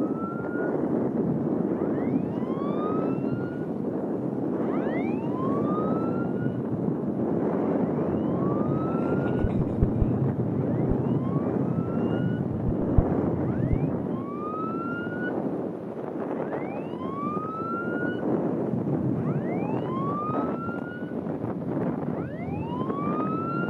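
Patrol boat siren sounding repeated rising whoops, about one every two seconds, over a steady rushing noise.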